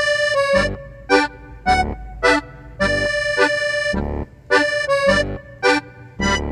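Instrumental background music in short, bouncy chords with brief gaps between them.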